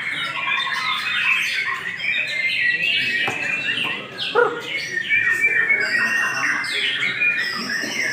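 Songbirds singing: a rapid, unbroken stream of chirps and trills.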